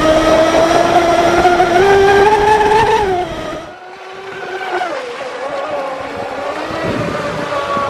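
A radio-controlled speedboat's motor whines at speed, heard close up, its pitch climbing steadily for about three seconds before cutting off. After that a quieter run of an RC speedboat's motor follows, dipping in pitch about a second later and then holding steady.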